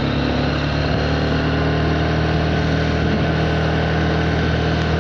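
Small motorbike engine running steadily at a constant pitch, with wind noise on the microphone.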